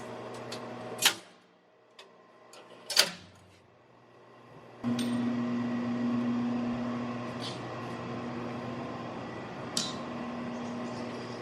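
A steady electrical hum, as from a running motor, which drops out for about four seconds and comes back stronger, with several sharp knocks: two loud ones about one and three seconds in, and fainter ones later.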